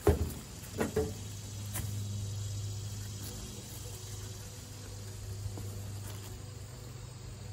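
A steady low hum, like an engine running nearby, with a short burst of voice just after the start.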